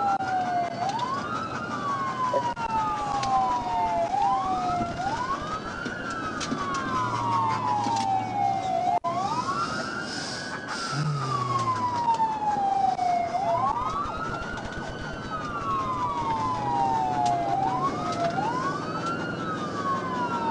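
Police car sirens wailing: two electronic wail sirens cycling out of step, each rising quickly and falling slowly in pitch, over steady engine and road noise.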